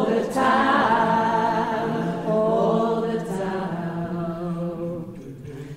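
Women's choir singing in harmony, long held notes, growing quieter near the end.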